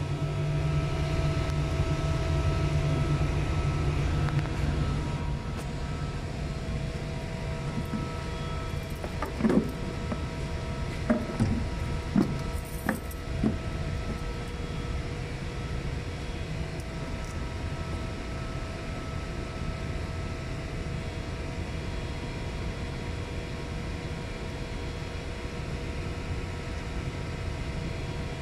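Steady drone of running HVAC machinery: a low hum with several steady tones above it. Between about nine and thirteen seconds in, a few short knocks and clicks from parts being handled.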